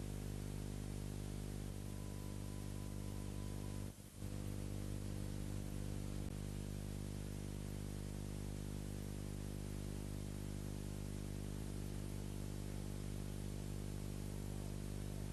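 Steady electronic drone: a low, many-layered hum under a constant hiss of static. About two seconds in a faint high tone sounds for two seconds, then everything cuts out for a split second before the drone resumes.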